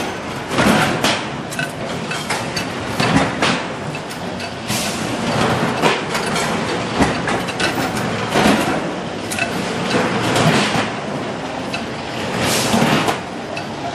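Workshop noise from stainless steel kitchen sink production: a steady machinery din with frequent, irregular clanks and knocks of metal.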